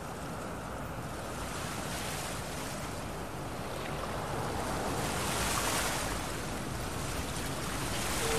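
Ocean surf, waves breaking and washing in, swelling and easing in a slow rhythm and loudest about halfway through.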